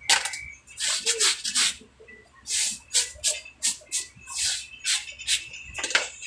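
About a dozen short, irregular rasping strokes from hands working on a shoe being mended.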